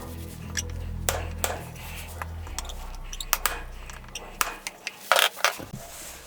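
Scattered light clicks and knocks of hard objects being handled, with a short scraping rush about five seconds in.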